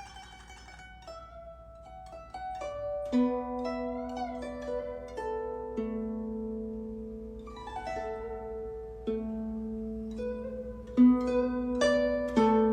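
Guzheng (Chinese zither) playing a slow solo passage: single plucked notes ring on, one is bent in pitch around four seconds in, and a quick run of notes comes near eight seconds.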